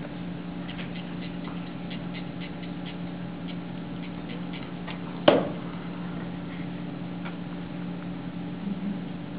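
A run of faint, light ticks and clicks, then one sharp knock about five seconds in, over a steady low hum.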